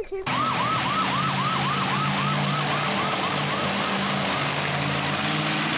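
Police-style yelp siren, a fast repeating rising wail about four times a second that fades after a few seconds, heard with the Sheriff monster truck. Under it, a steady low engine drone and arena noise.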